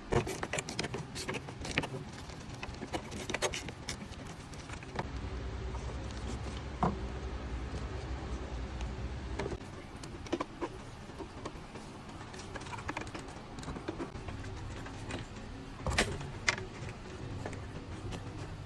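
Scattered clicks, knocks and clinks of tools and metal parts being handled, loudest just after the start and again around the sixteen-second mark. A steady low hum runs for about four seconds in the middle.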